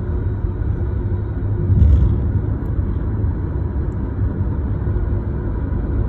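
Road noise of a moving car heard from inside it: a steady low rumble, with a brief louder swell about two seconds in.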